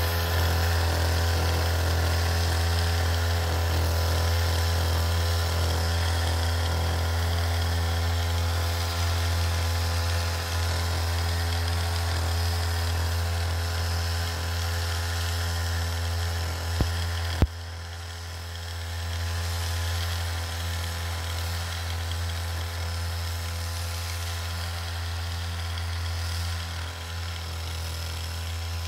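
A small motor running with a steady low hum. Two sharp clicks come about 17 seconds in, and after them the hum goes on somewhat quieter.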